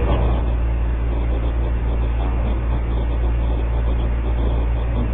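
Steady low hum with background noise, unbroken throughout and fairly loud.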